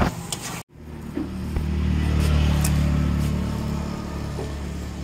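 A motor vehicle's engine rumbling as it passes close by. The low rumble swells about two seconds in, then slowly fades. Just before it, the sound cuts out for a moment.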